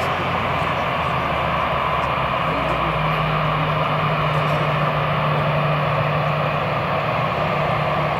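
Airbus A320's twin CFM56 turbofan engines running steadily during the landing rollout, a broad jet rush with a steady low hum that joins about two and a half seconds in.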